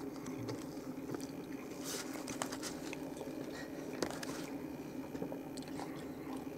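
A person chewing and biting into a bratwurst in a soft bun, with soft mouth noises and a few small clicks, over a steady low hum.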